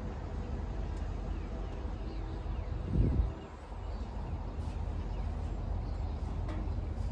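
Outdoor ambience: a steady low rumble with one brief, loud low thump about three seconds in, and faint bird chirps.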